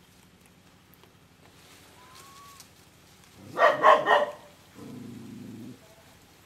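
An animal barking: a quick run of three or four sharp barks about three and a half seconds in, followed by a low, rough, growl-like rumble lasting about a second.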